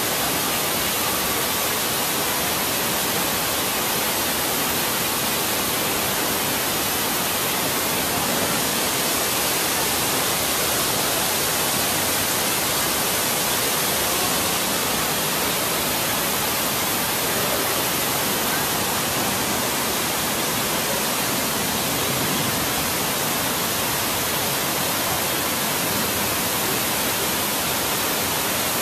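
Steady rush of falling water, even and unbroken throughout.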